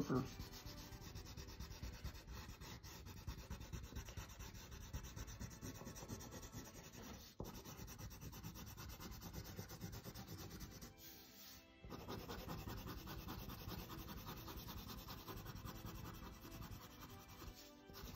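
Coloured pencil shading on drawing paper: a fast run of short back-and-forth strokes scratching across the sheet, pressed hard along the lines, with a short break a little past halfway.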